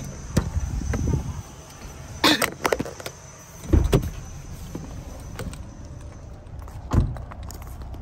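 A car door being opened and shut as someone climbs out: sharp clicks and knocks, and dull heavy thumps, the last about seven seconds in.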